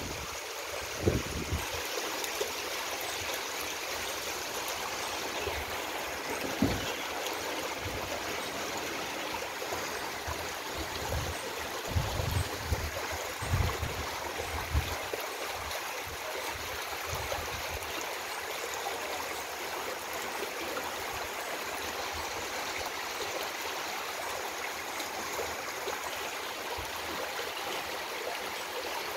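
Muddy floodwater rushing steadily down a road, a continuous stream-like rushing. A few short low thumps break in about a second in and again around the middle.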